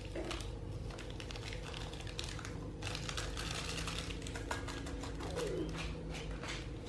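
Plastic sachets of powdered stock crinkling and crackling in quick, irregular ticks as they are squeezed and shaken empty over a pot.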